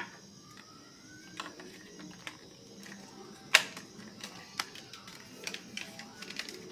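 Scattered sharp clicks and taps of small hard parts being handled, the loudest about halfway through and a quick run of them near the end, over soft background music.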